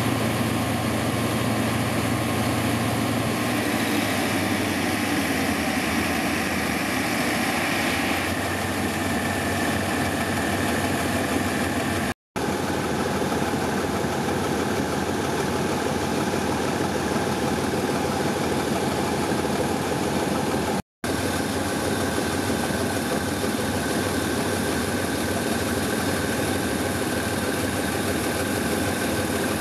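Diesel-electric locomotive No. 4014 idling steadily at rest. The sound drops out sharply twice, about 12 and 21 seconds in.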